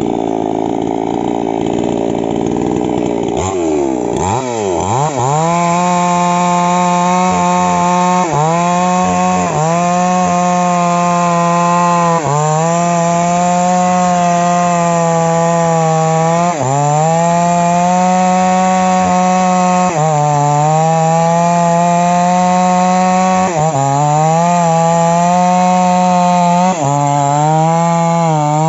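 Small two-stroke Falcon mini chainsaw running at low speed, then revving up about four seconds in and cutting into a tree trunk at full throttle. Its engine pitch sags and recovers every few seconds as the chain bites under load in the cut.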